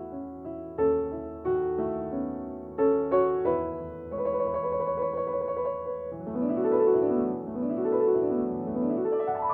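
Background piano music: separate struck notes and chords, then held chords, and from about six seconds in rapid runs sweeping up and down.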